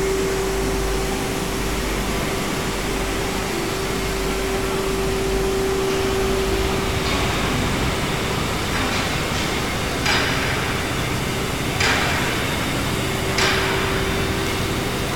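Q3210 tumble-belt shot blasting machine running: a steady mechanical hum with a constant tone, broken in the second half by a handful of sharp knocks.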